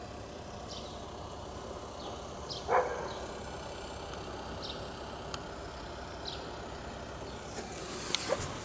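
A dog barks once, about three seconds in, over a steady low background hum; faint short high chirps recur now and then, and rustling and clicks begin near the end.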